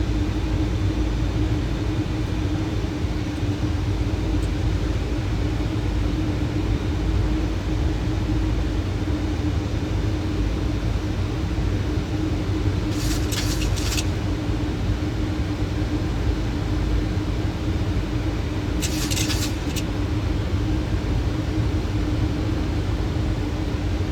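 Steady flight-deck noise of a Boeing 737 on approach with the landing gear down: a constant airflow rumble with a steady hum. Two brief hissing bursts come about halfway through and again some six seconds later.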